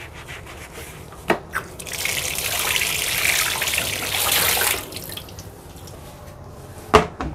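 Kitchen tap running into a sink for about three seconds, with a few sharp knocks of dishes before it and another near the end.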